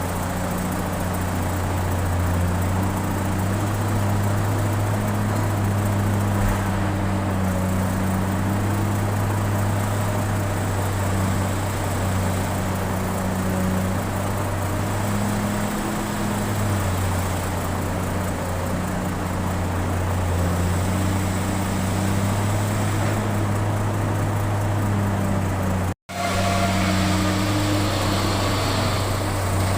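Excavator's diesel engine running steadily under working load, a low hum with small shifts in pitch. A brief cut in the sound near the end.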